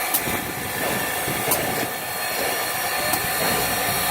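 Steady hiss of the Pere Marquette 1225, a Berkshire 2-8-4 steam locomotive, standing with steam up, with a few sharp clicks.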